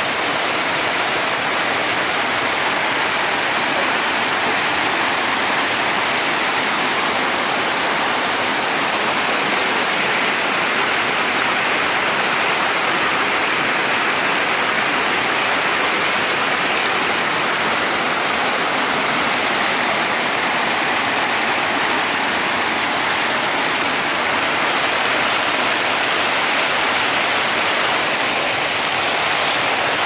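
Waterfall and shallow rock cascades pouring into a pool: a steady, unbroken rush of falling water.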